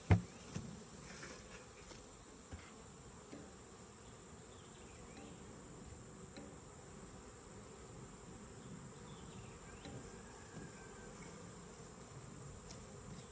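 Steady high-pitched chorus of crickets stridulating. A single sharp knock right at the start is the loudest sound.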